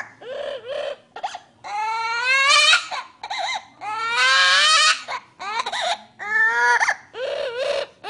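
Amazon parrot mimicking a crying baby: several long rising wails broken by short sobs, the loudest about halfway through.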